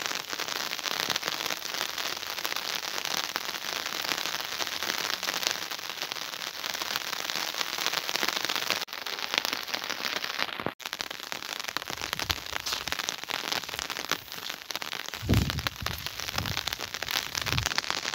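Steady rain falling, a dense patter of drops throughout; near the end a few low bumps of wind or handling on the microphone.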